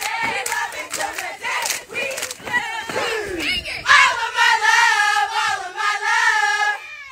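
Stepping: quick claps and stomps under a crowd of women's voices shouting. About four seconds in, a long, high, wavering call is held loudly for nearly three seconds.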